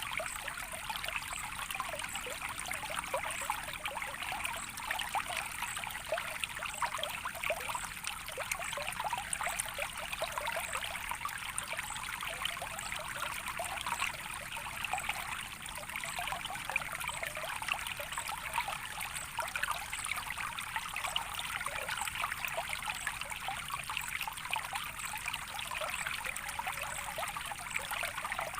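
Small stream of water trickling and babbling steadily, a continuous gurgling flow with no pauses.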